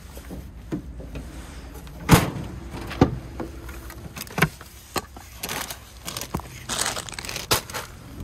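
Things being handled and set down in a truck bed: a series of sharp knocks and thumps, the loudest about two seconds in, with plastic snack-bag crinkling in the middle of the run.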